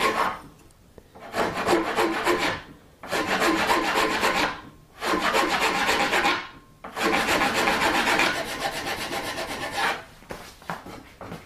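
Flat metal file rasping back and forth across the wooden tip of a yew recurve bow, truing up a sawn bevel for a horn tip overlay. It comes in several spells of quick strokes with brief pauses between them, and stops about ten seconds in.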